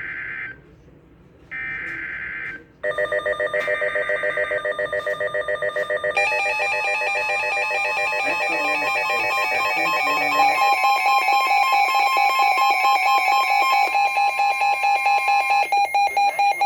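Emergency Alert System signal on NOAA Weather Radio for a Severe Thunderstorm Warning. It opens with two short buzzing bursts of SAME digital header data. About three seconds in, a loud, rapidly pulsing electronic alert tone starts, changes pitch pattern around six seconds in, and keeps sounding.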